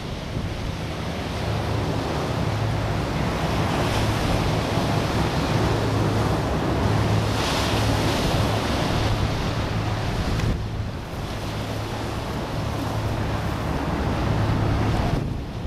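Hovercraft running with a steady low engine and propeller hum, under a loud rush of wind and surf. Wind buffets the microphone, and the rushing noise eases briefly just past halfway.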